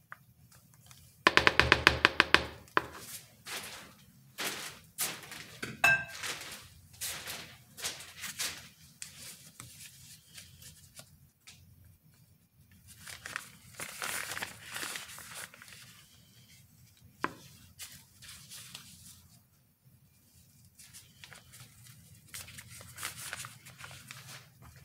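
A plastic piping bag being handled and twisted, crinkling and rustling, with scattered taps and knocks. A loud rasping rattle about a second in.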